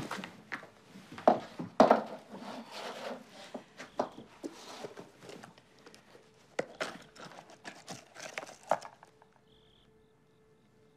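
A handbag being rummaged through: a busy run of rustles, clicks and knocks that stops about nine seconds in. A faint short high beep and a faint low pulsing tone follow.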